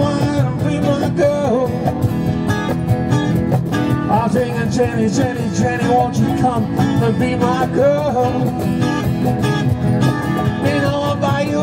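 Live acoustic rock and roll: two acoustic guitars strumming over a steady cajón beat, with a man singing at the microphone.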